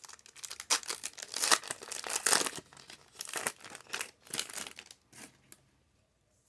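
Foil wrapper of a Pokémon card booster pack crinkling and tearing as it is ripped open by hand, in irregular bursts that die away about five and a half seconds in.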